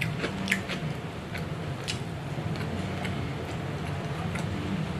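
Eating at the table: light, scattered clicks of chopsticks against a small ceramic bowl as fried rice is picked up, with soft chewing, over a low steady hum.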